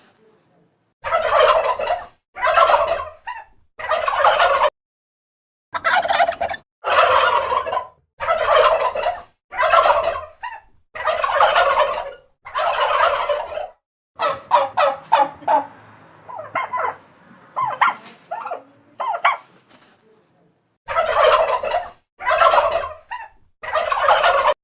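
Turkey gobbling: a series of loud rattling gobbles, each under a second long, repeated with short gaps. Around the middle comes a run of quicker, clipped stuttering notes before the full gobbles resume.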